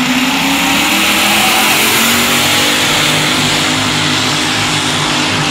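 A competition pulling tractor's engine running loud at high revs, its pitch climbing slightly in the first second and then holding steady.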